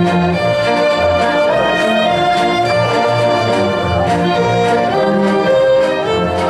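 Full symphony orchestra playing, strings and brass together over a steady pulse of low bass notes.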